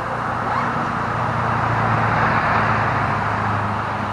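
A road vehicle driving past: its tyre and road noise swells to a peak about two seconds in and fades, over a low, steady engine hum.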